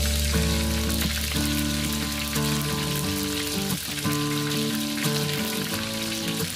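Steady sizzling crackle like food frying, with background music of held notes that change every second or so.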